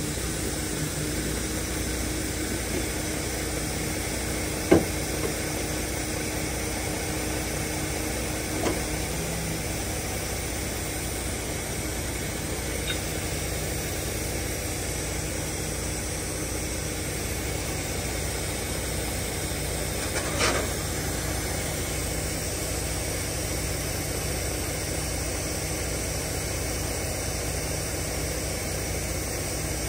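Heavy wrecker tow truck's diesel engine idling steadily, with three short knocks, the loudest about five seconds in.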